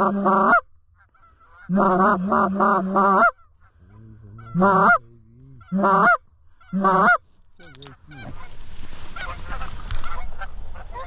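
Canada geese honking and clucking loudly in two quick runs of calls, then three single honks. From about eight seconds in, a rising noisy wash carries fainter calls as the flock comes in close.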